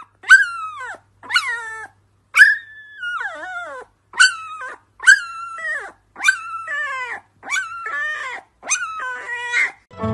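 Husky puppy howling: about nine short, high howls in a row, each sliding down in pitch, the third one longer than the rest.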